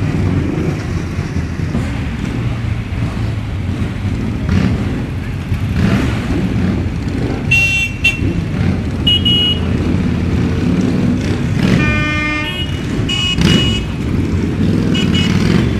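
Many motorcycle engines running together in a packed group, rumbling steadily with occasional revs. Horns toot several times in short blasts through the second half.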